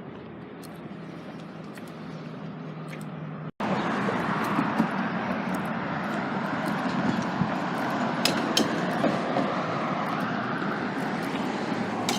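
Steady road traffic noise of passing cars, breaking off briefly about three and a half seconds in and coming back louder.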